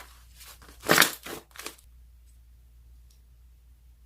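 Slime being squeezed and pressed by hand, giving a run of short crunching, crackling squishes. The loudest comes about a second in, and it stops after about two seconds.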